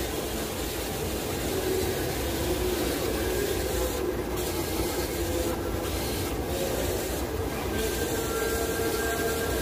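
A power sander running steadily, a continuous whirring hum with a hiss whose highest part drops out briefly a few times.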